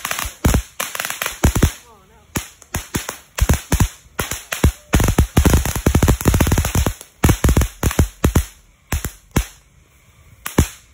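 Phoenix Lucky Taal Volcano ground fountain firework spraying sparks, with a hiss under dense, irregular crackling pops from its exploding stars. The crackling thins to a lull near the end, then picks up again.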